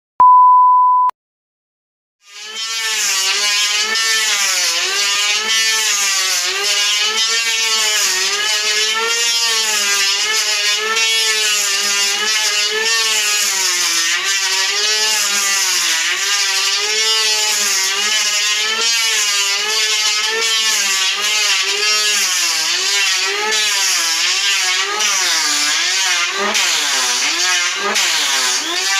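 A short steady beep, then after a second of silence an electric hand planer runs continuously on a wooden door, its motor whine dipping and rising in pitch again and again as the blade takes load in the cut.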